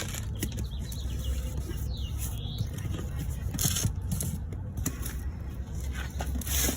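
Rustling, scraping and clicks from kittens being handled and set into a container, over a steady low rumble. There are two louder rustling bursts, one a little past halfway and one near the end.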